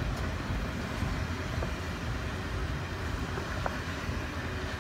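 Passenger cars of the Canadian Pacific Holiday Train rolling past: a steady low rumble of wheels on the rails, easing off slightly as the tail end of the train goes by.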